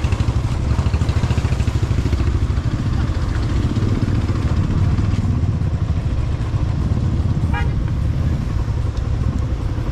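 Yamaha motorcycle's engine running at low speed and idling, a steady, fast low putter heard from the rider's seat.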